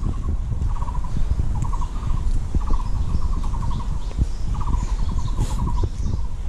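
Bicycle riding over a rough trail: a steady rumble and knocking, with short bursts of rapid ticking repeating every half second or so.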